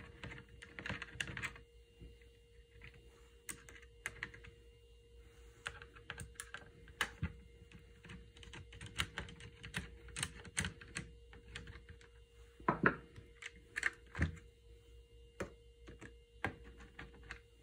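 Small, scattered metallic clicks and ticks of a screwdriver working two brass screws out of a knitting machine carriage, with a couple of louder knocks a little after the middle, over a faint steady hum.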